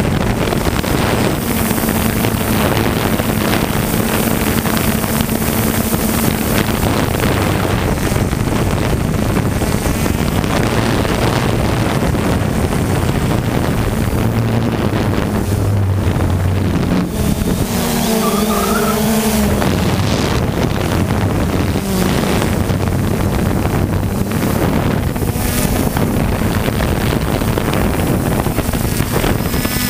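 3DR Solo quadcopter's motors and propellers running steadily, heard through its onboard camera, with wind rushing over the microphone; the low hum shifts in pitch now and then.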